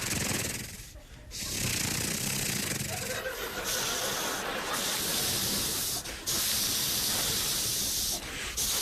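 A man making hissing sound effects with his mouth into a handheld microphone: several long, loud hisses broken by short pauses for breath.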